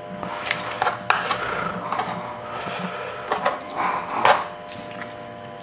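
Knife cutting through raw chicken on a plastic cutting board: irregular sawing and scraping strokes of the blade, with a few sharp knocks on the board.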